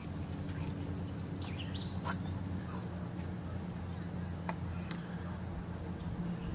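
A steady low hum, with a few short bird chirps and light clicks scattered over it.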